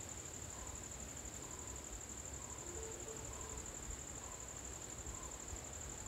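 Insects trilling: a steady, high-pitched, fast-pulsing chirr that runs on without a break.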